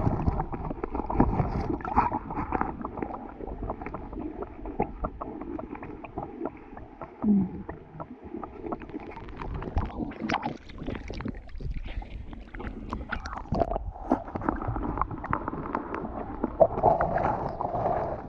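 Muffled underwater sound of hands digging into a sandy, seagrass-covered seabed: rumbling and sloshing water with many small knocks and clicks.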